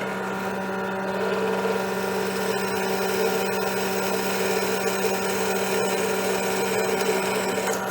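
Electric power tool motor running steadily.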